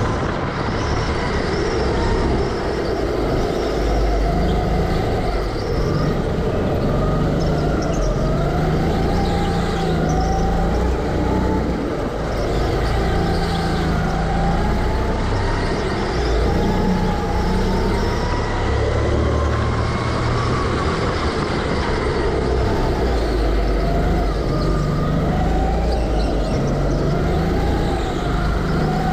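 Go-kart motor heard from the driver's seat, its pitch rising and falling again and again as the kart speeds up and slows through the corners, over a steady low rumble.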